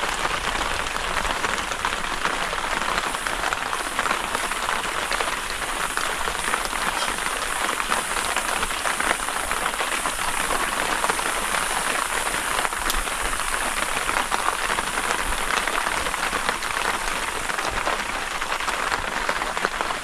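Steady rain falling, an even hiss that holds at one level.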